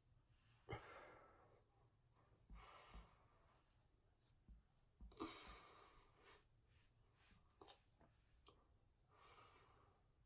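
Faint breathing: four slow breaths or sighs a couple of seconds apart, with a few soft low bumps and light clicks.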